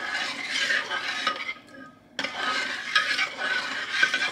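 A utensil stirring Jell-O powder into hot water in a bowl, scraping and swishing against the bowl. It stops briefly about halfway through, then starts again.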